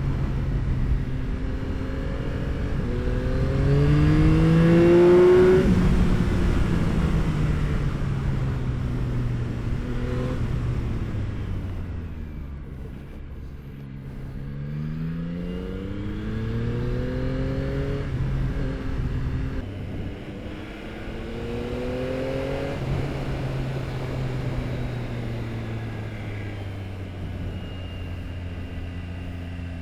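Yamaha R9's inline-three engine through an Akrapovic exhaust, heard while riding: it accelerates in several pulls with the pitch rising and dropping back at gear changes and when the throttle is eased, the loudest pull about five seconds in, then settles to a steadier run near the end.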